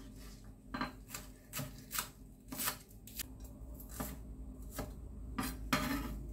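Chef's knife chopping spring onions on a wooden cutting board: a series of sharp, uneven knife strikes against the wood, about two a second.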